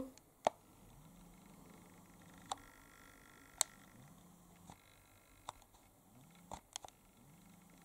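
Quiet room tone broken by a handful of faint, sharp clicks and taps at irregular moments, typical of a handheld camera being handled and moved.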